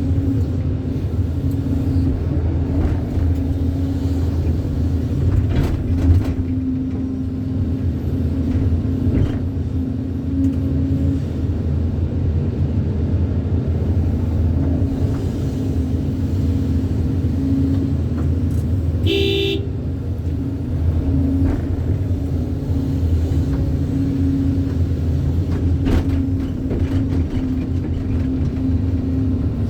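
Excavator's diesel engine running steadily at work, with a knock about six seconds in and a brief horn-like toot about nineteen seconds in.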